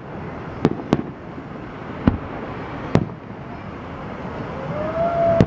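Aerial fireworks shells bursting: five sharp bangs at uneven intervals, two close together about half a second in and the last near the end.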